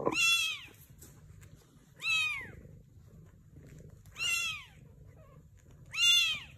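Newborn kittens mewing: four high-pitched cries, each rising briefly and then falling, about two seconds apart.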